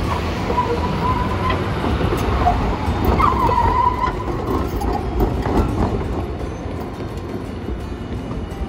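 Hiroden Green Mover LEX low-floor tram running through a curve, with a low rumble under a thin wavering wheel squeal against the rails, once about half a second in and again around three seconds in. The sound eases off near the end as the tram moves away.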